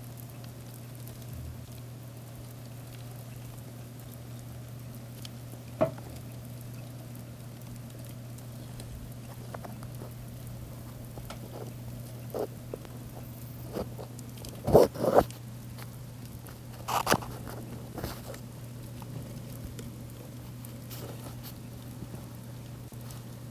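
Crickets crawling and feeding in a plastic tub: faint scratching and crunching over a steady low hum, with a few sharper knocks, the loudest a quick cluster about two-thirds of the way through.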